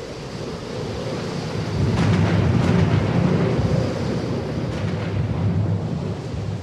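A low engine rumble, swelling about two seconds in and easing off near the end.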